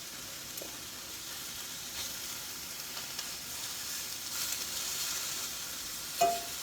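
Food sizzling in a frying pan on low heat, a steady hiss with small ticks as it is moved around with a fork. A short, sharp metallic clink stands out near the end.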